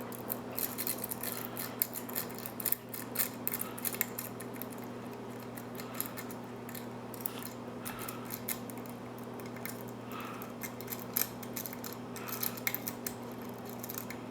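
Metal lock pick scraping and clicking against the pin tumblers inside a mortise lock cylinder's keyway, in quick irregular clicks as the pins are worked under tension. A low steady hum runs underneath.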